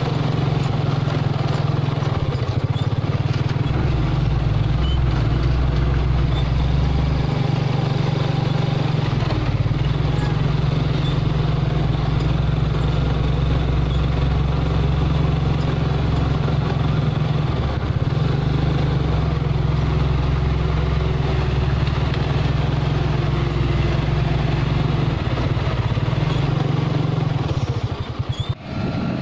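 Mitsubishi Fuso 220 PS self-loader truck's diesel engine running as the truck moves slowly, loaded with an excavator. It gives a low, steady engine note whose deepest part swells and fades a few times, with a brief break near the end.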